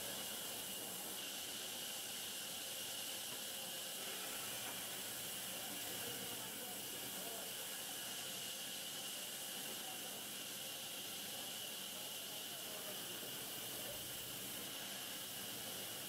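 Sawmill band saw running with a steady hiss and a faint machine hum underneath.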